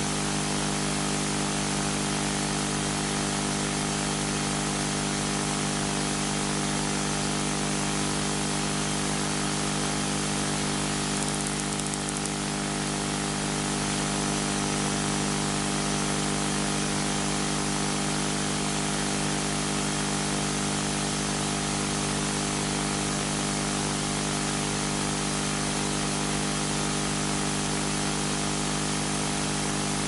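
Steady background noise: a constant hiss with a low electrical hum underneath, unchanging throughout.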